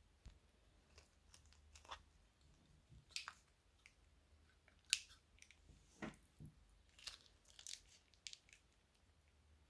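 Faint scattered crinkles and clicks of a small plastic bag being handled, cut open with scissors and squeezed out over a glass bowl of slime glue. A sharp click comes about five seconds in, followed by a soft low squish.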